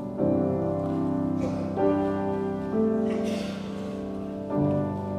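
Instrumental close of the hymn's accompaniment after the singing has ended: piano playing slow sustained chords, a new chord struck every one to two seconds.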